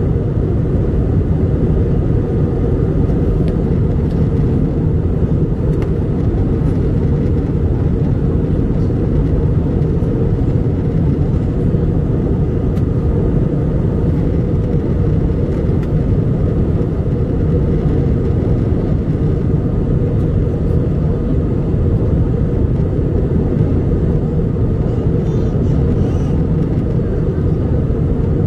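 Airbus A320 cabin noise in flight: a steady low rumble of the engines and air streaming past the fuselage, with a faint steady tone above it.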